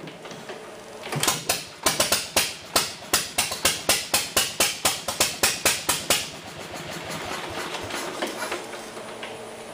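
Rusty 1946 Wisconsin AHH single-cylinder air-cooled engine starting up: slow, sharp firing beats about three to four a second, then settling into a steadier, even run about six seconds in.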